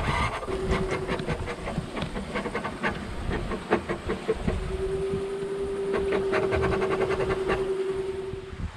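Sailboat under sail in rolling seas: a steady rush of wind and water with small creaks and clicks, and a steady mid-pitched tone that comes in briefly near the start and again for the last four seconds or so.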